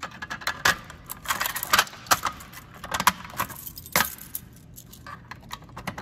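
A ring of keys jangling and clinking while a key is worked into the reset lock of a Notifier fire-alarm pull station. The clinks come thick and fast for about the first four seconds, then thin out.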